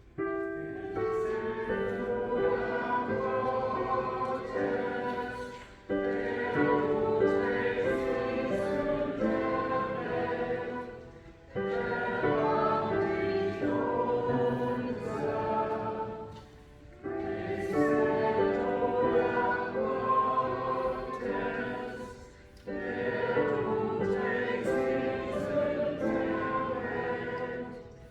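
Church choir singing a slow hymn in several voices, in phrases about five seconds long with a short break between each.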